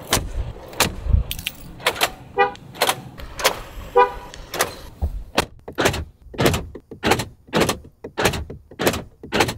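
Mercedes-Benz G-Class horn giving two short toots, about two and a half and four seconds in, as the key fob is pressed, over a steady beat of sharp ticks about twice a second.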